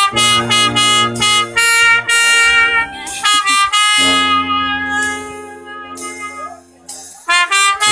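Brass band with trumpets and trombones playing live: a run of short, clipped chords, then a longer held chord. The playing drops off briefly near the end before coming back in.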